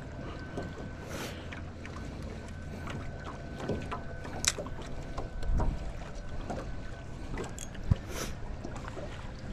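Small fishing boat sitting on a windy lake: wind on the microphone and water lapping at the hull, with scattered light clicks and knocks and a low thump about five and a half seconds in. A faint steady high whine runs underneath and stops about seven seconds in.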